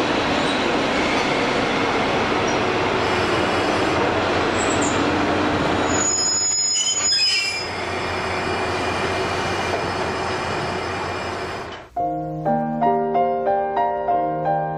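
Sanriku Railway diesel railcar running into a station and slowing to a stop, its running noise steady. A high brake squeal comes about six seconds in. About twelve seconds in the train sound cuts off and gentle piano music begins.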